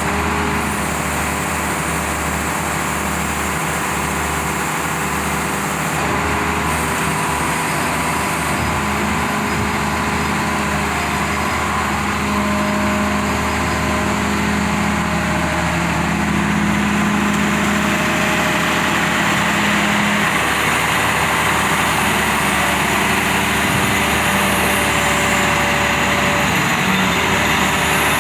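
Cummins diesel engine of a Badger 670 mobile excavator running steadily, a loud constant hum whose tones shift a little partway through.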